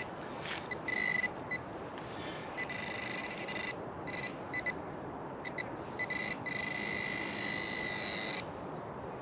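Metal detector pinpointer buzzing at a steady high pitch as it is swept over a buried target, cutting in and out many times, then sounding without a break for about two seconds near the end. The steady tone marks metal close to the probe tip, here a coin.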